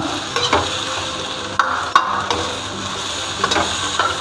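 Spatula scraping and knocking against a steel wok as bamboo shoots and sardines are stir-fried, over a steady sizzle. The strokes come irregularly, roughly one every second.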